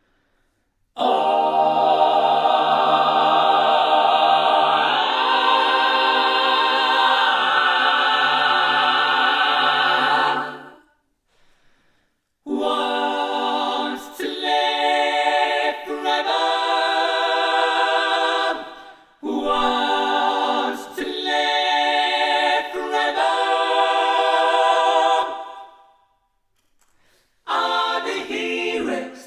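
Background music of layered a cappella vocal harmonies, sung as long held chords that shift pitch and stop for short breaks.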